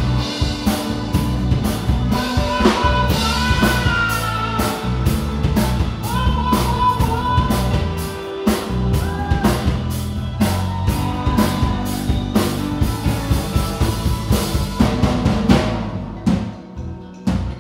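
A live rock band playing guitar and drum kit with a steady drum beat. The cymbals and high end drop away about a second before the end.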